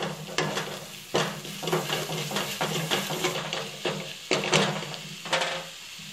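Wooden spatula stirring and scraping a thick spice masala around a kadai, with the paste sizzling in hot oil. The masala is being fried with a spoonful of gram flour stirred in to thicken the gravy. Several sharp scrapes of the spatula stand out over the steady sizzle.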